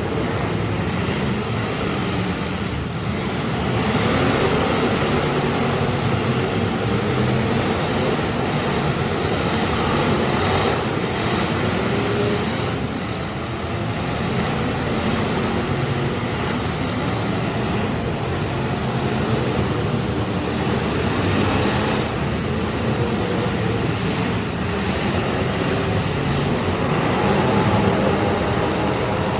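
Several demolition derby cars' engines running loudly and revving up and down, a continuous mechanical racket.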